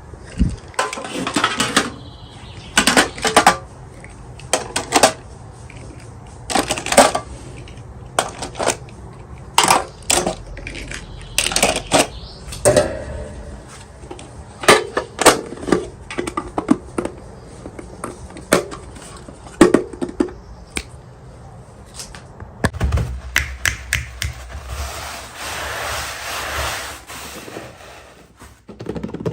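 Irregular clicks, taps and clatter of small plastic toy pieces and packaging being handled, with a stretch of rustling near the end.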